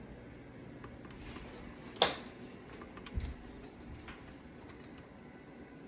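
Handling of a bare iPad body: a sharp click about two seconds in, a soft low knock about a second later, and faint ticks in between.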